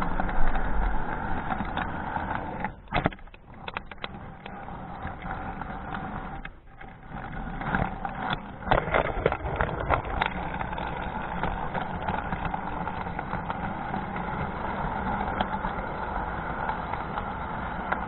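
Model train running along its track, heard from on board: a steady motor hum with the wheels rattling on the rails. Clusters of sharp clacks about three seconds in and again around eight to ten seconds in, as the wheels run over rail joints and switches.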